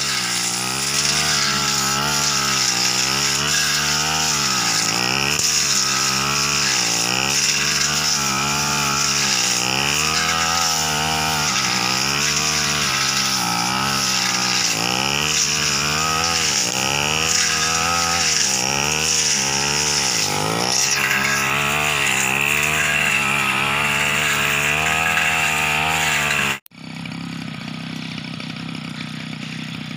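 Backpack brush cutter's small petrol engine running hard, its pitch dipping and recovering every second or so as the blade bites into thick ferns and scrub. About 27 s in the sound cuts abruptly to a quieter, steadier engine note.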